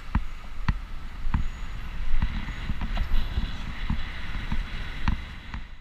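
Riding noise of a bicycle on a city street: a steady low rumble with irregular sharp clicks and knocks as the bike and camera rattle over the road.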